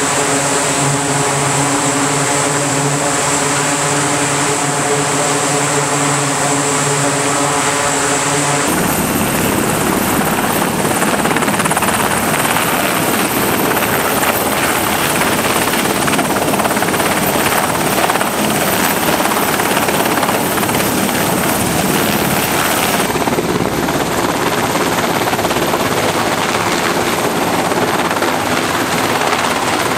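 MH-60S Sea Hawk helicopter's rotors and twin turboshaft engines, loud and steady, with rushing wind noise. For the first nine seconds a steady hum of several even tones with a whine above it, then it changes abruptly to a dense rushing noise with a thin high whine.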